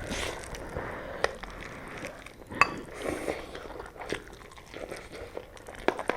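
Close-up eating of ramen noodles: chewing with scattered small clicks of a utensil against a bowl, and one sharper ringing clink about two and a half seconds in.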